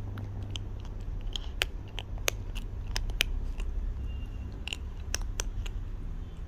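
Kitten chewing dry kibble: sharp, irregular crunches, about fifteen in all, with a steady low hum underneath.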